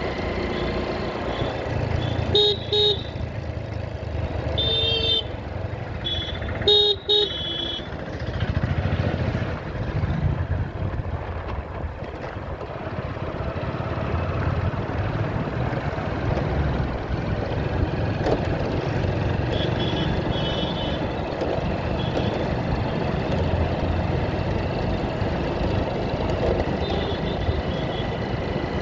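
Road noise of a motorbike ride through traffic: steady engine and wind rumble, with short vehicle horn beeps several times in the first seven seconds and a few fainter beeps later.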